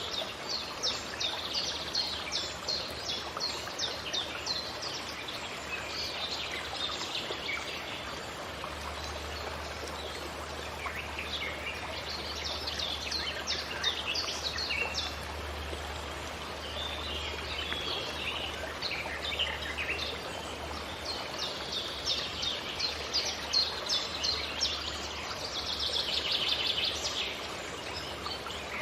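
Forest ambience: several small birds chirping in quick runs of short, falling high notes, coming and going in clusters throughout, over a steady background hiss.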